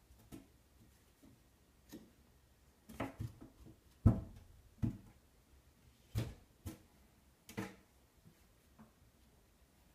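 A kitten pawing and batting at a wooden door: irregular light knocks and thumps, about ten in all, the loudest one about four seconds in.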